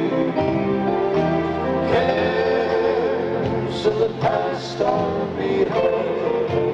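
A western harmony vocal group of several male voices sings a cowboy song in close harmony, with acoustic guitars strummed along.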